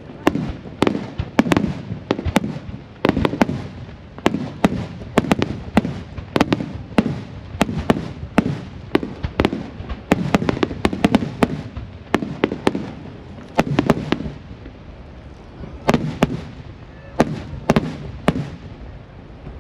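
Aerial firework shells bursting in a fast barrage, several sharp bangs a second, each followed by a low rumbling echo. The bursts thin out in the last few seconds.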